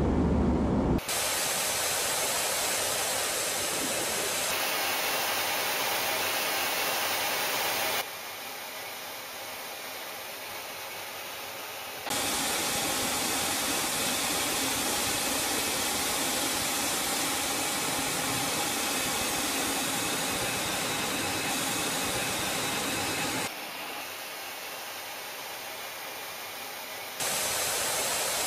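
Steady rushing hiss of jet flight noise, as heard from an aircraft filming fighter jets in the air. The level jumps abruptly at several cuts and twice drops quieter for a few seconds.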